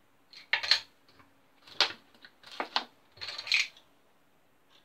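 Plastic measuring spoons and the cap of a vegetable oil bottle being handled: about five short clicks and rattles spread over the first four seconds, with almost nothing after.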